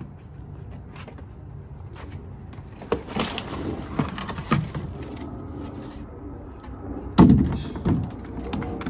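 Fish being tipped out of a plastic crate onto concrete: a run of wet slaps and knocks, then a loud hollow thud about seven seconds in as the empty plastic crate is dropped, with a smaller knock just after.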